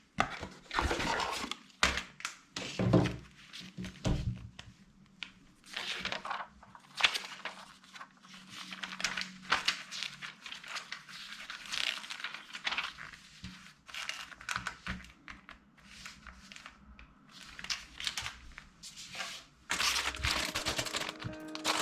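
Plastic Lego parts bags crinkling and being torn open, with irregular thunks and clicks from the box and bricks being handled. Music comes in near the end.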